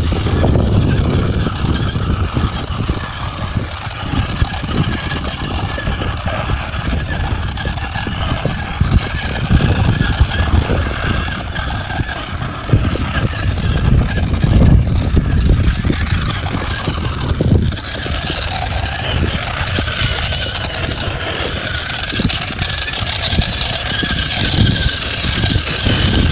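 Radio-controlled model truck running, its small electric motor and gears giving a steady thin whine that gets higher and stronger about two-thirds of the way through, over a heavy uneven low rumble.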